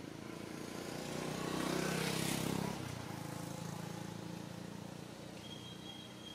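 A motor vehicle's engine passing: it grows louder to a peak about two seconds in, drops away sharply soon after, and runs on more faintly.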